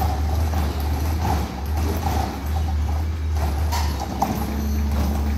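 Autocar ACX garbage truck with a Heil Rapid Rail automated side-loader body, its diesel engine running with a steady low rumble. A few sharp clanks sound about four seconds in.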